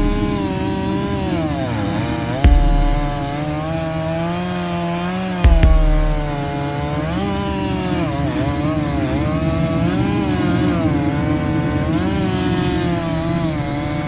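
Chainsaw running under load while cutting into the base of a standing tree; its engine pitch sags and picks up again several times as the chain bites. Two sudden low thumps, about three seconds apart, are the loudest sounds.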